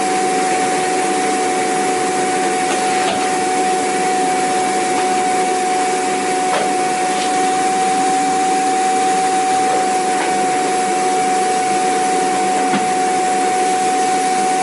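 Vacuum cleaner running steadily: an even motor whine over a broad hiss, with a few faint ticks.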